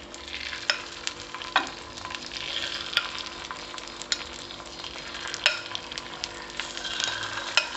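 Beaten egg sizzling as it is spooned into hot oil in the compartments of a paniyaram pan, with a steady frying hiss and sharp clicks of the spoon against the pan every second or so.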